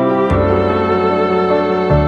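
Slow instrumental background music with long held notes, with a string-like sound. The bass note changes shortly after the start and again near the end.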